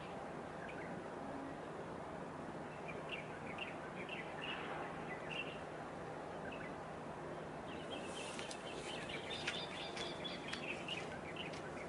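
Small birds chirping on and off over a steady low background hum; the chirping turns busier, with quick sharp clicking notes, in the last few seconds.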